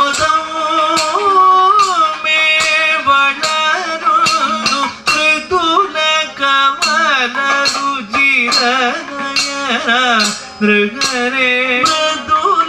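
Kathakali music: a male singer sings a slow, ornamented melody with a wavering, sliding pitch, over regular sharp percussion strokes from the chenda drum and ensemble.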